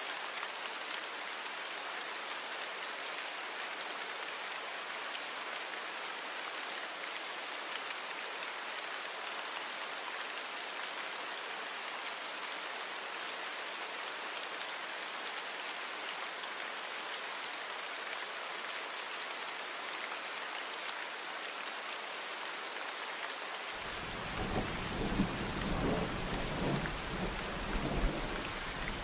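Steady rain falling, an even hiss. Late on, a low thunder rumble comes in and swells several times.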